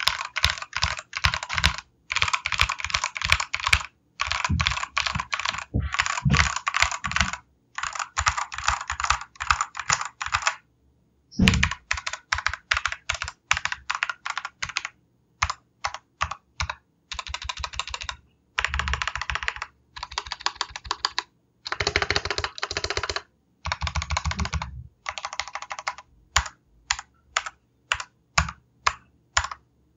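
Royal Kludge RK987 mechanical keyboard with red linear switches being mashed at random: fast runs of keystrokes in bursts of a second or two with short pauses between, thinning to a few single spaced key presses near the end.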